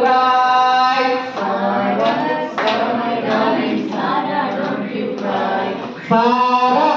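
A woman singing into a handheld microphone, holding long notes in the first second, then shorter sung phrases.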